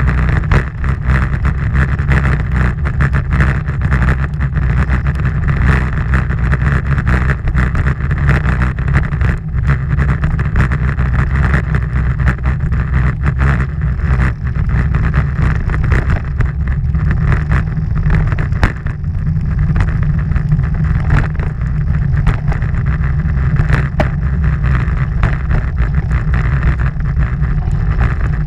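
Wind rushing over the microphone of a camera mounted on a moving road bike: a loud, steady rumble with many small knocks and rattles.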